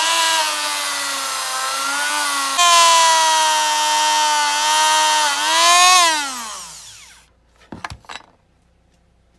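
Small handheld rotary tool with a polishing brush wheel running at high speed: a steady whine that gets louder and drops slightly in pitch about a third of the way in. It is then switched off and winds down with a falling pitch, and a couple of short clicks follow.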